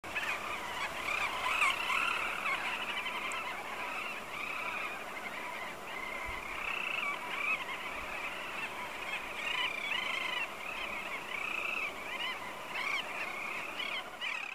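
A dense chorus of many birds calling at once, short overlapping honking calls layered over one another without a break, like a large flock or colony.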